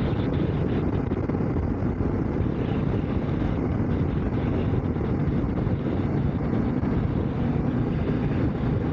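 Steady wind rush with engine and road noise from a motorcycle being ridden at road speed, picked up on the rider's microphone. It is an even, unbroken roar, heaviest in the low end.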